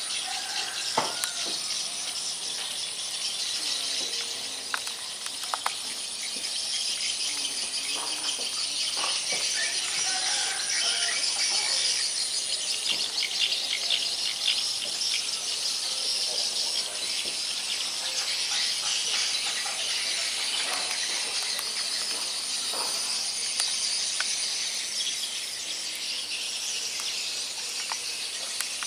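Steady outdoor insect chorus: a continuous high-pitched trill over a hiss, with a few faint clicks and short chirps scattered through it.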